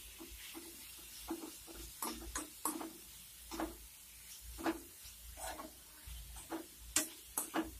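Spatula stirring grated raw mango and onions in a nonstick kadai: irregular scraping strokes against the pan, with a few sharp clicks of the spatula on the pan's rim around two seconds in and again near the end.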